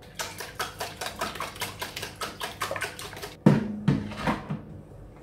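Eggs being beaten in a plastic Tupperware dish: quick, even clicking strokes, about six a second, then a few heavier knocks against the dish about three and a half seconds in.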